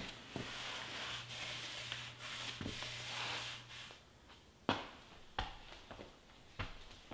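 Steady rubbing on wood for about four seconds, then three or four sharp knocks.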